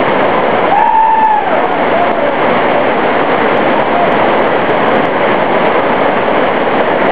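Loud, steady rush of whitewater rapids, with a short high-pitched call about a second in.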